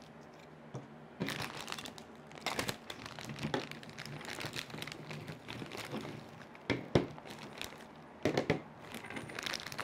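Clear plastic parts bags crinkling as they are handled and opened, in irregular bursts. A sharp knock about seven seconds in as a plastic stand part is set on the table.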